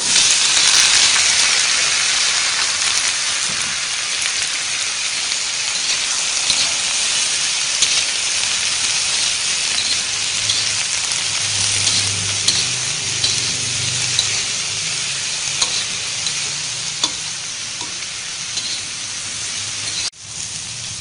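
Sliced purple eggplant sizzling in hot oil in a wok, stir-fried with garlic, shallots and chilli, with light clicks of the spatula against the pan. The sizzle cuts out briefly near the end.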